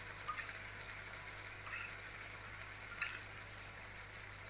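Butternut squash cubes cooking in a pan with a steady faint sizzling hiss, as coconut cream is spooned in, with three light taps of the spoon against the pan.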